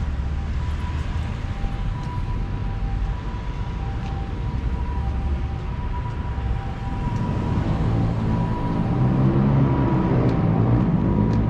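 Street traffic: a steady rumble of passing vehicles, with a faint high tone coming and going. In the last few seconds a heavy engine hum grows louder.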